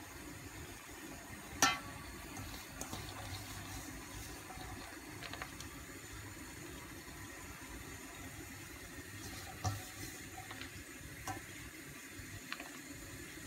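A few light clicks and taps from a steel puttu tube as ragi flour and grated coconut are spooned and packed into it, the sharpest about two seconds in, over a steady low rushing background.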